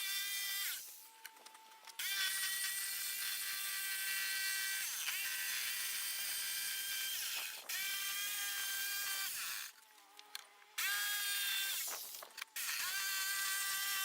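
Electric power saw motor whining as it cuts out a curved arch form from a board. It is triggered several times: a short burst at the start, a long run of about eight seconds, a stop near ten seconds in, then two more runs, each start rising in pitch as the motor spins up.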